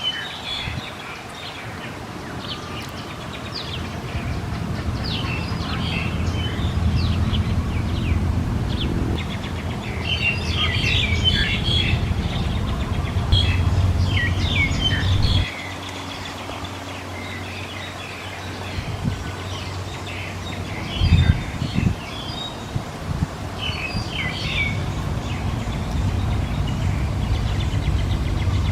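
Bird chirping in quick, high clusters, on and off, over a steady low rumble that cuts off suddenly about halfway through.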